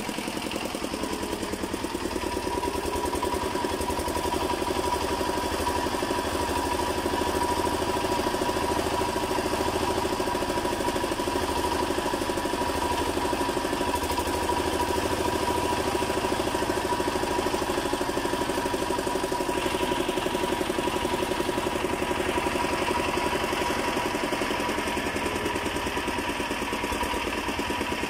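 Diesel generator set running steadily, its engine firing in an even, rapid beat while it drives the repaired synchronous alternator. A steady thin whine runs alongside from about a second in.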